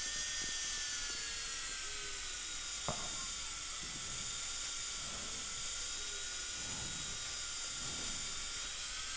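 Dental drill running steadily with a new bur grinding away at a broken implant abutment: a steady high whine of several pitches that sag and recover slightly as the bur is loaded, with a small click about three seconds in.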